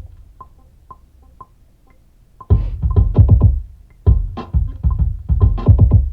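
Drum-machine beat: light, evenly spaced ticks at first, then from about two and a half seconds in, loud bass-heavy kicks and percussion hits in a repeating pattern.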